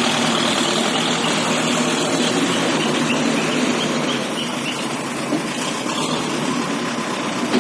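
ACE backhoe loader's diesel engine running steadily.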